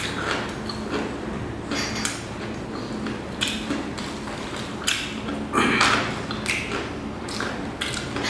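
Eating sounds: scattered short crunches and taps as crispy fried chicken is bitten and handled.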